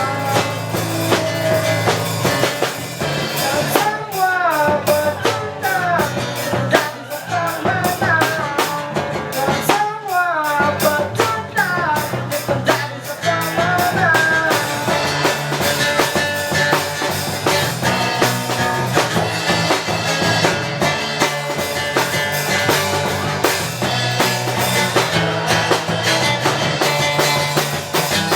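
Instrumental break of an acoustic pop-punk song: guitars with a drum kit keeping the beat. A fast melodic lead line plays over them from about 4 to 14 seconds in.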